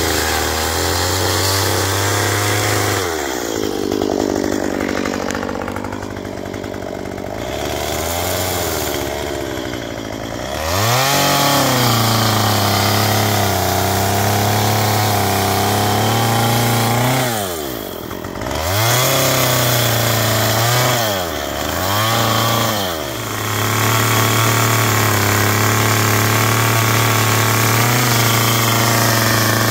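Stihl two-stroke chainsaw carving into a cedar stump, run at high revs. About three seconds in the throttle is let off and the pitch falls to a lower, quieter run. It climbs back to full speed near eleven seconds, then dips and recovers three quick times later on.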